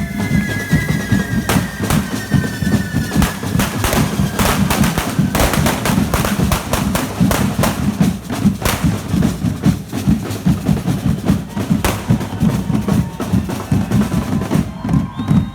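Drum band playing a fast, steady beat, with many sharp cracks among the drumming.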